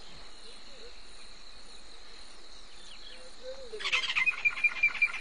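A steady, high insect buzz, then about four seconds in a bird breaks into a loud call of rapid, evenly repeated notes, about five a second.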